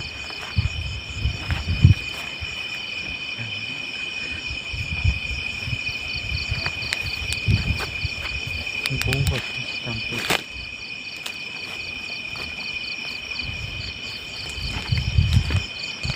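Night insects chirping: a continuous high trill with a faster pulsing chirp above it, typical of crickets, with irregular low thumps and a few sharp clicks close to the microphone, the loudest about ten seconds in.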